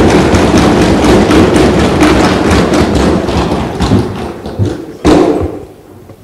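Many people thumping their wooden desks in a dense, continuous clatter of knocks, which dies away near the end after one last loud bang; desk-thumping is the Indian legislature's way of applauding.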